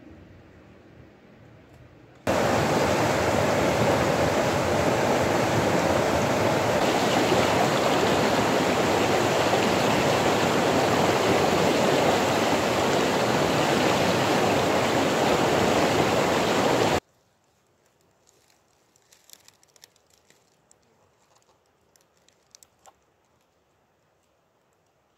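Fast-flowing, muddy river rushing over rocks: a loud, steady rush that starts suddenly and cuts off suddenly after about fifteen seconds, followed by a few faint taps.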